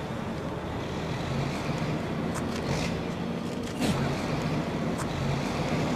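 Steady rumble of road traffic with a low engine hum, with a few brief sharper sounds over it around the middle.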